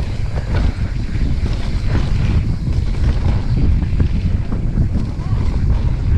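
Wind buffeting the microphone of a camera on a mountain bike at speed down a trail: a heavy, steady low rumble with scattered small knocks and rattles.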